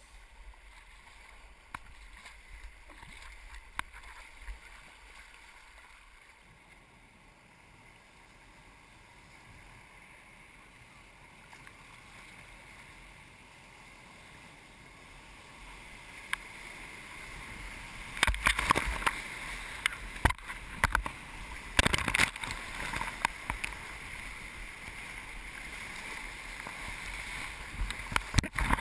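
River whitewater rushing around a kayak, faint at first and growing louder from about halfway through, with several sharp knocks and splashes in the second half.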